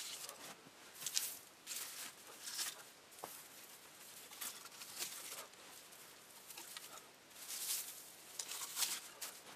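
Spruce boughs rustling as they are handled and laid against a lean-to's pole frame: a series of short swishes of needles and twigs at irregular intervals.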